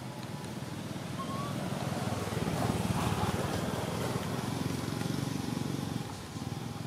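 Low background rumble that swells to its loudest about three seconds in and then eases off.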